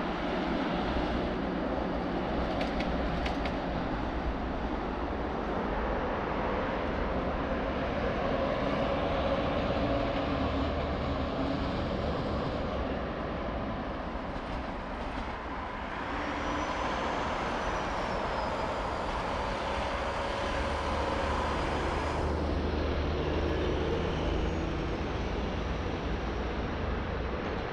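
Trams (a Tatra T3SU, then a KTM-5U) running along a street tram line, mixed with passing road traffic and wind. A faint rising and falling whine comes in just past halfway, and the sound changes abruptly near the end.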